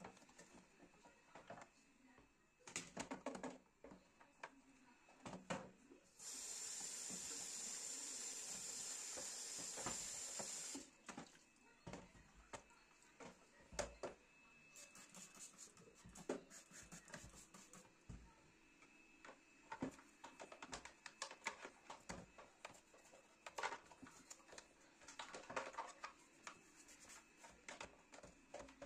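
Household handling sounds: scattered light clicks and knocks of objects being moved and set down, with a steady hissing rush from about six seconds in that lasts about four and a half seconds and cuts off.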